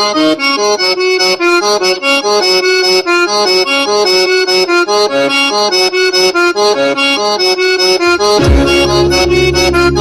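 Recorded music: an accordion plays a fast melody over a steady clicking beat. A heavy bass comes in about eight seconds in.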